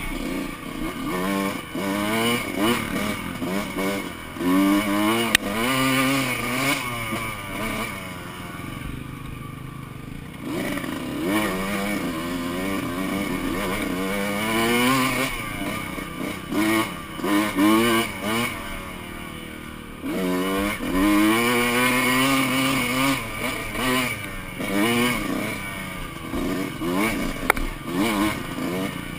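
2005 Kawasaki KX125 two-stroke dirt bike with a shorty FMF exhaust being ridden, the engine revving up and easing off over and over, its pitch climbing with each burst of throttle. Twice, about a third and two thirds of the way through, it drops back briefly to a lower, quieter note.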